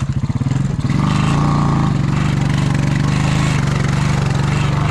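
Honda Rancher 350 ATV's single-cylinder four-stroke engine at low revs with separately audible firing pulses, then revved up about a second in and held at a steady higher speed.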